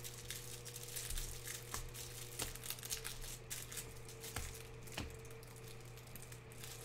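A stack of glossy Panini Prizm basketball cards being flipped through by hand, the cards sliding and ticking against one another in faint, irregular clicks, over a low steady hum.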